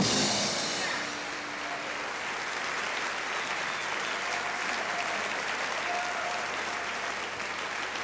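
Concert audience applauding steadily at the end of a live blues number. The band's last cymbal crash and held chord ring off during the first second.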